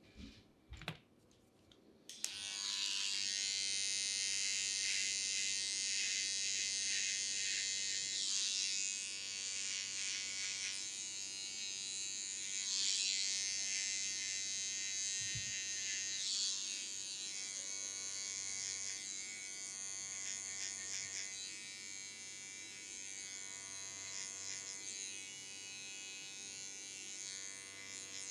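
Electric hair clippers switching on about two seconds in, after a couple of short clicks, then buzzing steadily, the tone shifting now and then.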